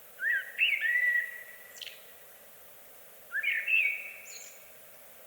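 A songbird singing two short phrases of rising whistled notes, about three seconds apart, over a faint steady hiss.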